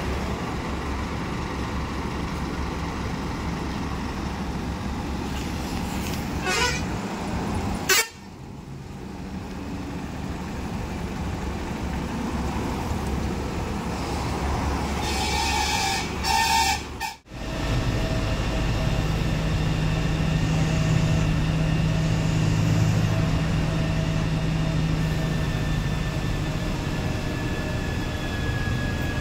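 Engine rumble and road-traffic noise around an Ashok Leyland bus, with a vehicle horn honking twice in quick succession a little past halfway. After a sudden cut, the bus's steady engine drone and road noise are heard from inside its front cabin as it drives along.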